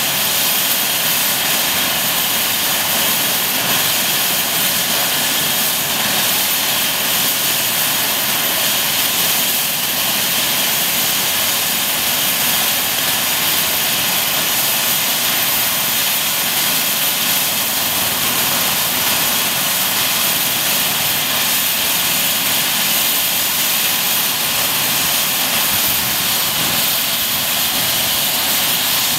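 Eurocopter EC135 helicopter running on the ground with its main rotor turning: a steady high turbine whine over rotor noise, unchanging in level.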